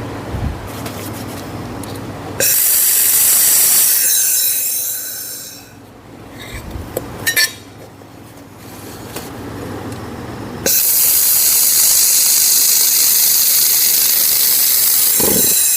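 Handheld laser welder firing on 6 mm steel plate: a loud hiss that switches on suddenly about two and a half seconds in and fades out, then switches on again about eleven seconds in and holds steady. A few small clicks come between the two welds, over a low steady hum.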